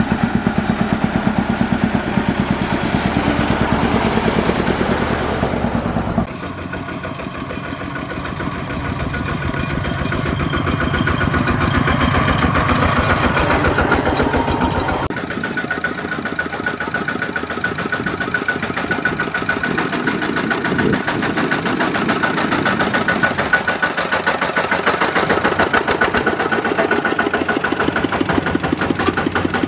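Single-cylinder diesel engine of a two-wheel tractor (power tiller) running under load, hauling a trailer of rice sacks, with a rapid, steady firing beat. The sound changes abruptly about six seconds in and again about halfway through.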